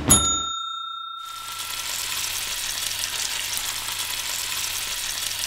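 A single bright bell-like ding right at the start, ringing and fading over about a second and a half. From about a second in, a steady sizzle of food frying in hot oil.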